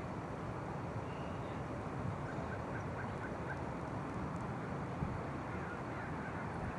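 Steady roadside background noise of road traffic. About two seconds in, a faint run of about six short, high chirps comes at roughly four a second, and a light click follows a few seconds later.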